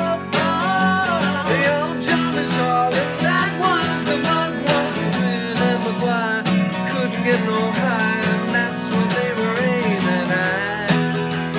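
Acoustic guitar strummed in a steady rhythm, with a sung vocal melody over it.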